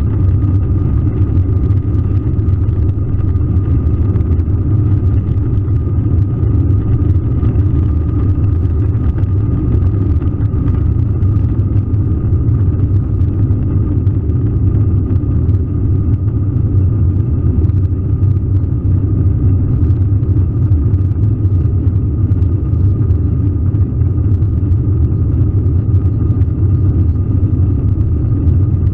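Cabin noise of an Airbus A321 at takeoff thrust as it lifts off and climbs: the jet engines' steady deep rumble with a thin, even whine over it.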